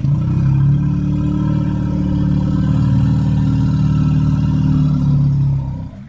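A low, steady rumbling growl about six seconds long, used as a dinosaur character's sound effect, cutting in and out abruptly.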